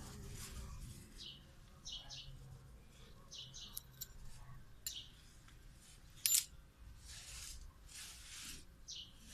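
Small birds chirping: repeated short, high chirps that drop quickly in pitch. A single sharp metallic clink comes about six seconds in, and there are a couple of soft rustles after it.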